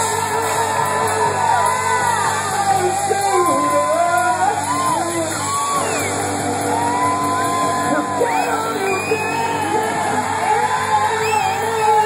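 Live hard rock band playing with electric guitar, bass and drums, with sung and shouted vocals. Long notes bend and glide up and down over the dense, steady band sound.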